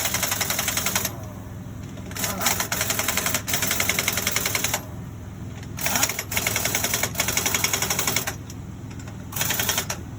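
Pneumatic impact wrench hammering on a dump truck's wheel lug nuts, running in four bursts of one to three seconds with short pauses between, over a steady low engine hum.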